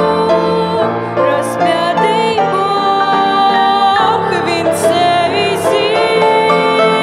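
Slow church hymn music with long held notes in several parts: voices singing over instrumental accompaniment.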